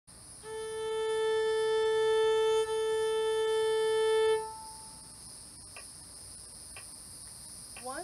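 Violin holding one long bowed note at concert A for about four seconds, with a brief break about two and a half seconds in, likely a bow change, over a steady high buzzing of cicadas. After the note stops, the cicadas carry on, with a few faint short sounds about once a second.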